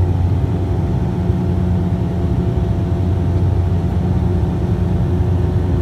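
Steady, unchanging engine drone with a low hum, like a vehicle or aircraft running at constant speed.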